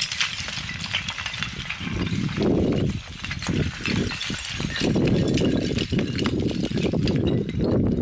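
Loose talus blocks clinking and clattering against each other, shifted by a climber scrambling down through the rocks. Under it is a low, gusting rumble of wind on the microphone.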